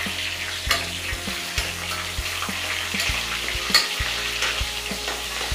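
Cumin, whole dried red chillies, bay leaves and green chillies sizzling in hot oil in a metal kadhai as a tadka is sautéed. A metal spoon stirs them, knocking against the pan several times.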